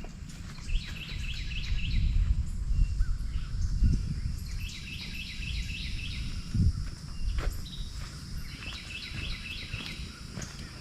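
A songbird singing three runs of quick repeated chirps, over a steady low rumble and a few short knocks.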